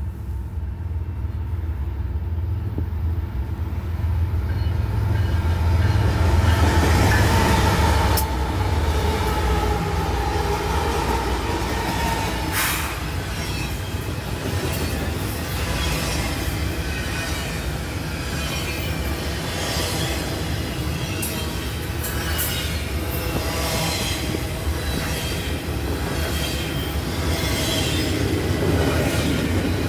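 Train passing close by: a deep rumble at first, then railcars rolling past with steady clicking over the rail joints and wheels squealing.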